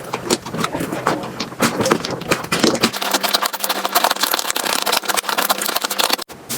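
Slime being squeezed and pressed by hand, making dense sticky crackling and popping clicks. There is a brief break just before the end.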